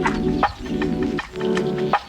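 Background music: a repeating chord pattern, about one phrase every three-quarters of a second, punctuated by short percussive hits.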